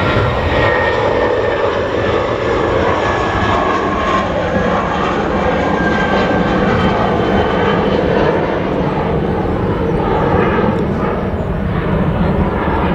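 Jet airliner engines running loud and steady, with a faint whine that drifts slightly lower in pitch.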